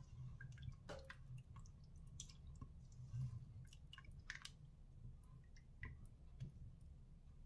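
Faint stirring of a creamy sauce with a spatula in a multicooker's non-stick inner pot: soft wet squelches with a few light clicks and scrapes.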